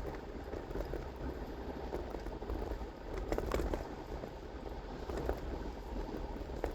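Car interior road noise while driving: a steady low rumble of tyres and engine, with a few light ticks a little past halfway.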